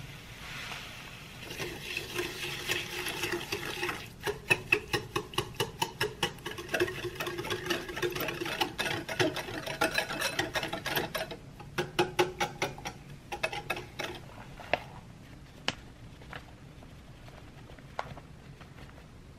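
Wire balloon whisk beating an egg mixture in a glass bowl: rapid rhythmic clinking and scraping of the wires against the glass, about four strokes a second, pausing briefly and stopping about fourteen seconds in. A couple of faint single clicks follow.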